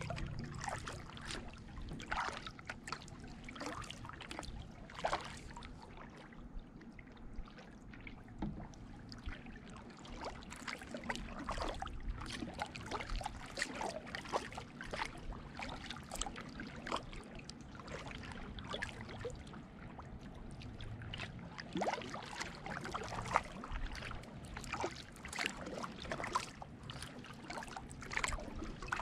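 Kayak paddling on calm water: paddle blades dipping and pulling, with water dripping and trickling off the blades in many small, irregular splashes and drips.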